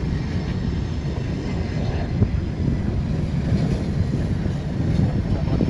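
Blue Angels F/A-18 Super Hornet's twin jet engines running as the jet rolls along the runway: a steady low rumble.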